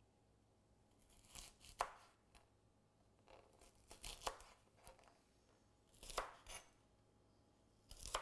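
Chef's knife chopping a bundle of fresh green beans on a plastic cutting board: faint crisp cuts in small clusters, with short pauses between.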